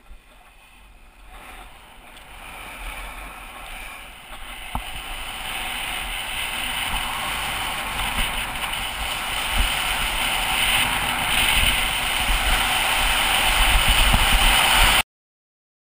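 Wind rushing over a skier's camera microphone, with low buffeting, and skis hissing over snow, growing steadily louder as the skier picks up speed downhill. The sound stops abruptly near the end.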